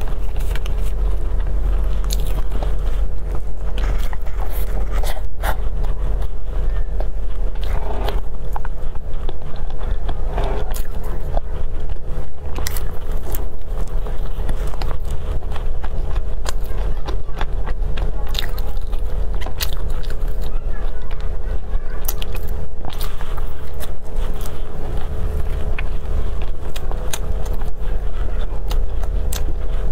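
Close-miked biting and chewing of toasted baguette slices brushed with egg, filled with taro paste and wrapped in bacon: many short, sharp crisp clicks over chewing. A steady low hum runs underneath.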